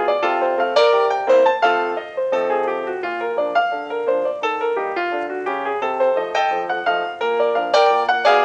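Background piano music: a steady flow of single notes and chords.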